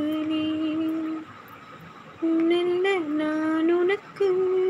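Cat meowing in long, drawn-out calls, about a second each, several in a row with slight rises in pitch.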